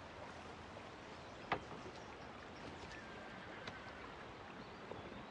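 Faint steady hiss of river water flowing, with one sharp click about a second and a half in.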